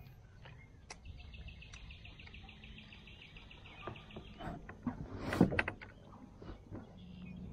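A bird's even, rapid trill lasting about three and a half seconds. It is followed by a few sharp knocks and one loud thump about five seconds in, over a low steady rumble.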